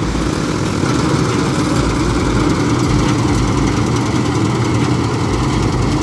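New Holland combine harvester running steadily while it cuts rice, its diesel engine and threshing machinery making a continuous, even drone.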